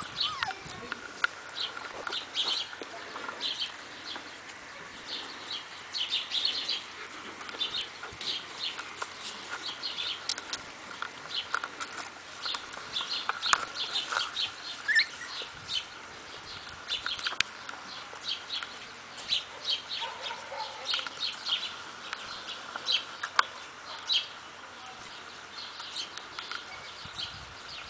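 Small birds chirping in many short, high calls, with a few sharp clicks and smacks from puppies eating out of a shallow plastic bowl.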